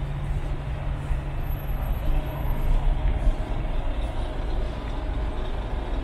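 City bus engines running in slow, jammed traffic: a steady low rumble, with a low hum that fades about halfway through.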